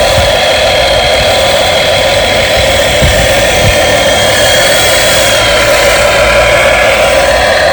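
RC dump truck running steadily, its motor and gearbox giving a continuous mechanical whine with no let-up.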